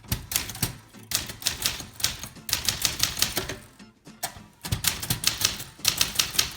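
A manual typewriter, likely the 1964 Brother De Luxe, being typed on in quick runs of several sharp keystrokes a second. The runs break off briefly about a second in and again about four seconds in.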